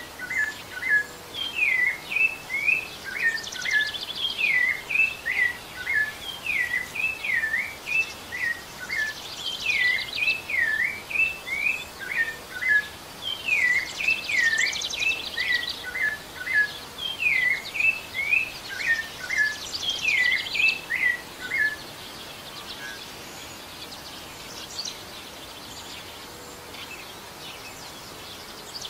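Rufous-bellied thrush (sabiá-laranjeira) singing repeated phrases of short, clear whistled notes, with higher trilled notes between phrases. The song stops about three-quarters of the way through, leaving a steady background hiss.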